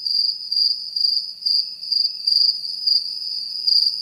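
Crickets chirping: a steady, high trill that pulses in quick, uneven chirps.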